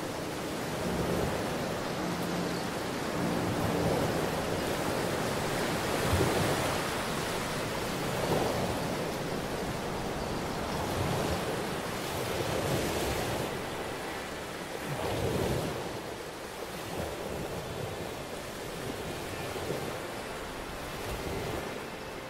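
Ocean surf on a relaxation soundtrack, swells of washing noise rising and falling every couple of seconds, with faint sustained music tones underneath near the start.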